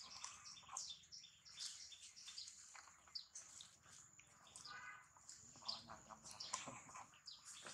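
Faint, scattered short high chirps, with soft ticks and rustles in between.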